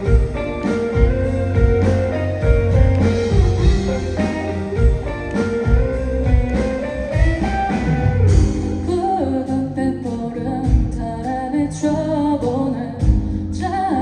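Live band music: a Telecaster-style electric guitar over drums, playing the instrumental introduction of a song.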